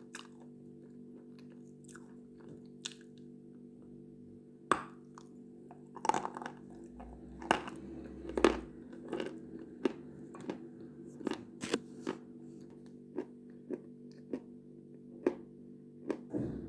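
Close-up biting and chewing of something hard and crunchy, with crisp, ringing crunches. A few faint clicks at first, then a loud crunch about five seconds in and crunches every half second to second after that, over a steady low hum.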